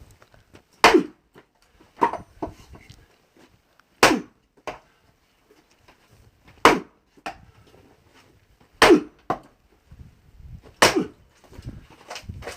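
Axe splitting a thick oak butt round: five heavy strikes about two seconds apart, with lighter knocks between them. The thick butt end is not splitting easily.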